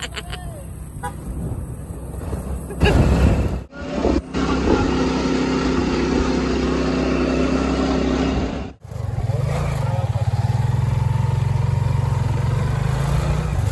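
Motorcycle engine of a tricycle running steadily while riding along a road, a low hum with steady pitch. The sound breaks off abruptly twice, about four and nine seconds in.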